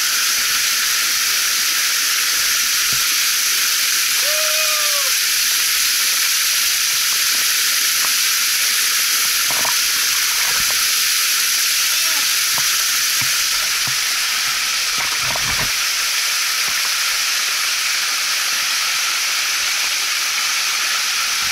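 Small waterfall pouring into a rock plunge pool close by: a steady, loud hiss of falling and splashing water.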